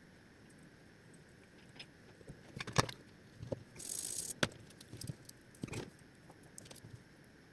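Clicks and knocks of plastic parts and tools being handled while a vacuum cleaner's brush head is worked on, with a brief hiss about four seconds in.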